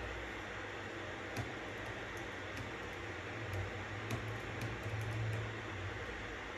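Steady white-noise hiss with scattered, irregular clicks of computer keyboard typing. A low rumble swells briefly a little past the middle.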